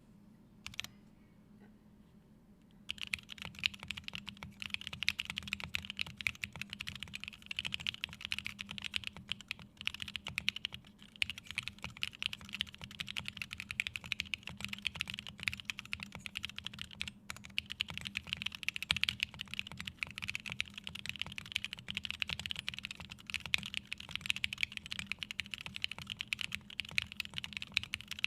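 Typing on a mechanical keyboard fitted with full aluminium keycaps and SP-Star Sacramento switches lubed with Krytox 205g0: a single keystroke, then steady fast typing from about three seconds in, with brief pauses twice.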